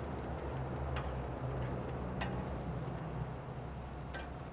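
Chicken wings sizzling on hot grill grates over a low steady hum, with a few sharp ticks and clicks as the wings are turned with metal tongs.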